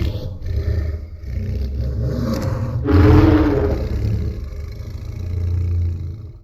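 Giant-ape creature sound effect for Kong: a deep, rumbling growl that swells into a louder roar about three seconds in, then carries on low before cutting off abruptly near the end.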